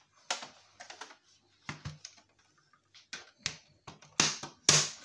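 Irregular sharp clicks and knocks of a Sky satellite box's plastic casing being handled on the bench. The two loudest knocks come near the end.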